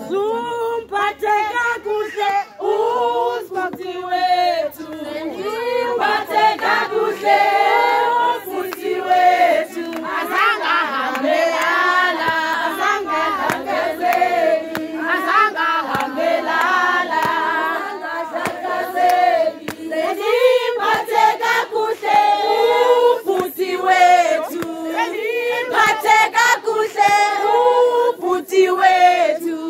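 A group of women singing a song together, loud and close.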